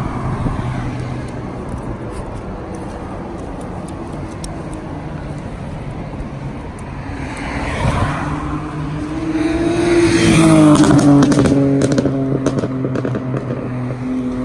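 Cars passing on the road alongside. A steady traffic hum runs throughout, then one vehicle passes close, loudest about ten seconds in, its engine note dropping in pitch as it goes by.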